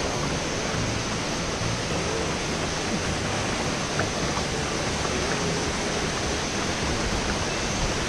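Waterfall pouring into its plunge pool: a steady, even rush of water.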